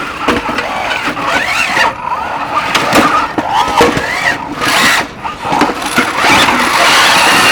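Small combat robots' electric drive motors whining, rising and falling in pitch over and over as they accelerate and reverse. Squeals and knocks come in as the robots push and scrape against each other.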